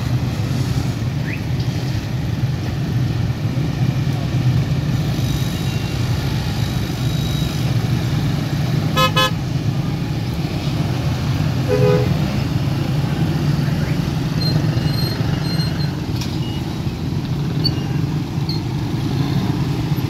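Steady low rumble of road traffic and waiting vehicles at a railway level crossing. A road vehicle's horn gives a short, rapidly pulsing toot about nine seconds in, followed by a brief lower beep a few seconds later.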